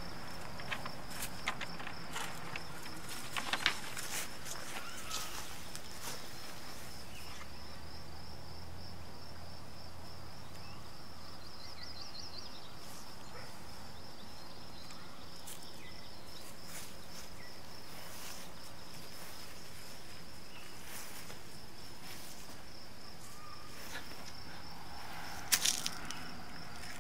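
Outdoor summer ambience: a steady, high, pulsing insect trill runs throughout, with scattered light steps and scuffs and a couple of sharper clicks near the end.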